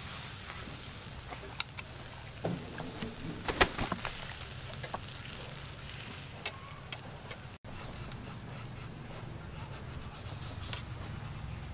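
Insects chirping in repeated short high-pitched trills, with several sharp clicks of metal tongs against a wire grill rack as raw beef is laid over charcoal.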